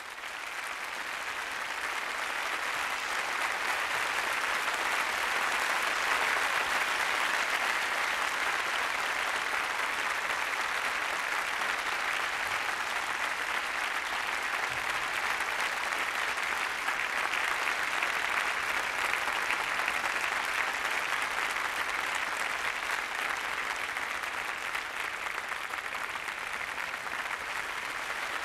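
Concert audience applauding, the clapping building over the first few seconds and then holding steady.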